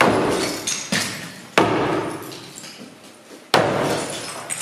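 A sledgehammer striking a plaster and masonry wall four times, the second blow lighter, each hit followed by a crumbling rattle of broken plaster and rubble as a walled-in chimney is knocked open.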